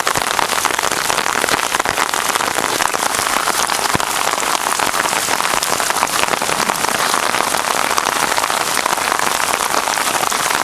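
Heavy, steady downpour drumming on an umbrella overhead: a dense patter of countless drops.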